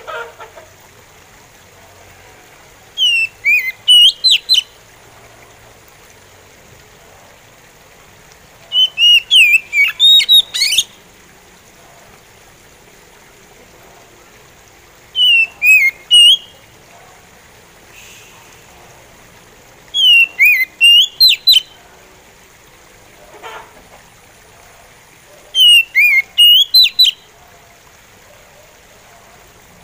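Oriental magpie robin singing a slow song: five short phrases of clear whistled notes that sweep down and up, each a second or two long, spaced about five or six seconds apart.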